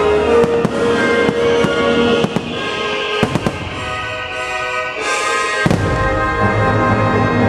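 Fireworks shells bursting in a string of sharp bangs and crackle over patriotic show music with held tones.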